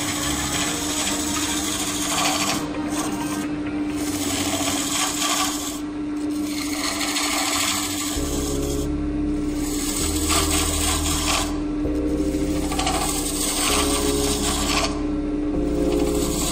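Hollowing tool scraping and cutting inside a spinning olive-root hollow-form vase on a wood lathe, a rasping hiss that stops and restarts several times as the tool is eased in and out, over the steady hum of the lathe.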